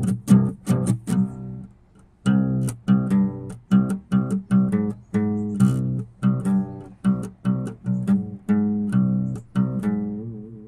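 Music of plucked string notes in a steady rhythm. It breaks off briefly about two seconds in, then resumes and fades out near the end.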